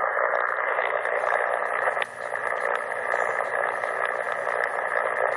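CommRadio CR-1a shortwave receiver tuned to 7.272 MHz giving out a steady, thin hiss of band noise and static through its speaker, with no station coming through. The level dips briefly about two seconds in.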